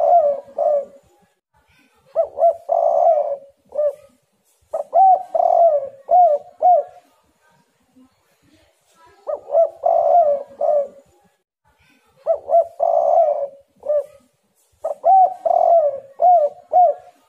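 Spotted dove (tekukur) cooing. It gives a run of phrases, each made of a few short coos around a longer rolling middle note, repeated every two to three seconds. There is a longer pause about halfway through.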